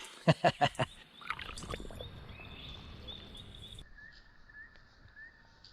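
A few quick knocks near the start, then a low hiss and a small animal's short chirp repeating about twice a second in the background.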